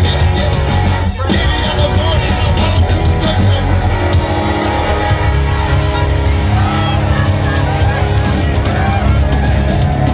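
Live rock band playing electric guitars loudly over a strong bass line.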